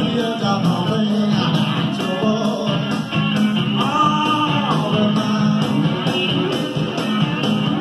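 A rock-and-roll band recording with singing and guitar, played back from a cassette on a Sanyo stereo cassette deck through a Marantz 2230 receiver and Bose speakers, with a steady beat.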